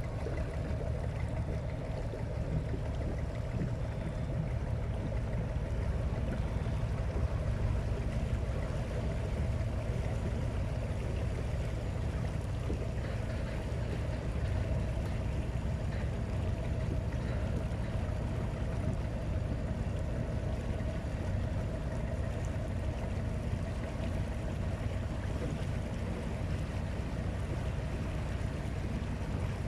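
Small motorboat's engine running steadily while keeping pace with the vehicle on the water.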